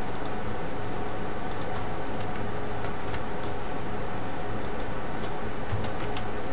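Faint, irregular clicks of a computer mouse and keyboard, a dozen or so scattered through, over a steady background hiss with a low hum.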